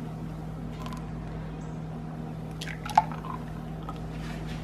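Oat milk pouring from a glass measuring jug into drinking glasses, with one short sharp drip-like sound about three seconds in. A steady low hum runs underneath.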